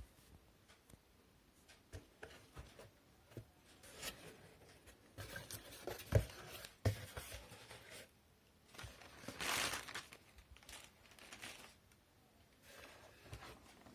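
A cardboard shipping box being opened by hand: packaging tearing and crinkling between scattered taps and knocks. There is a sharp thump about six seconds in and a longer tearing stretch around nine to ten seconds in.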